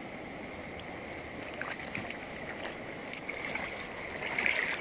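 River water running steadily, with light splashing and a few sharp clicks that grow busier toward the end.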